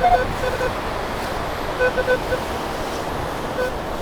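Metal detector giving short, irregular beeps, a cluster around two seconds in, as it pinpoints a buried coin in the sand, over steady surf and wind noise.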